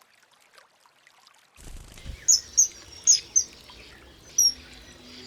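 Near silence at first. About a second and a half in, a faint outdoor background comes in, and a common kingfisher gives five short, shrill, high-pitched calls: four close together, then one more about a second later.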